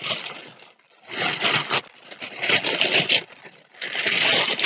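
Plastic mailing pouch crinkling and rustling as it is pulled open by hand, in about four separate surges.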